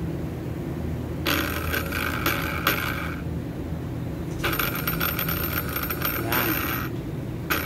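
Small 12 V DC motor of a 2012 Land Cruiser transfer case actuator running in bursts as it is wired straight to a battery: twice for about two seconds each, starting again near the end. It runs when powered, showing the motor works.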